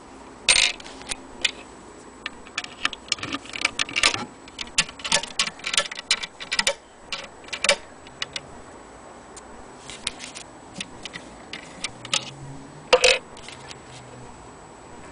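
Irregular clicks, taps and light knocks from handling an antique wooden sewing-machine case and its small metal key on a string, with a louder knock about two-thirds of the way in.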